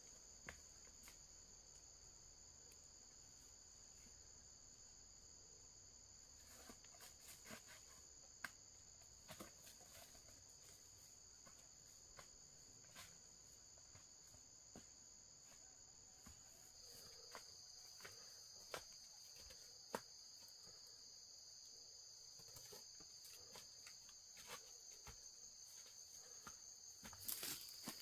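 Faint, steady high-pitched trilling of insects in two continuous tones, one shifting slightly lower about seventeen seconds in, with scattered soft clicks and taps.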